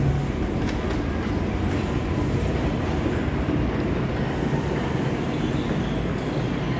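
New York City subway train rumbling steadily through the underground station.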